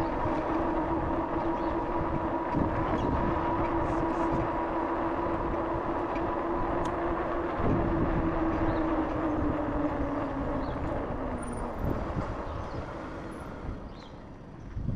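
RadRover electric fat-tire bike riding on pavement: a steady whine from its rear hub motor over wind and tyre rumble. The whine sinks slowly in pitch and fades as the bike slows near the end.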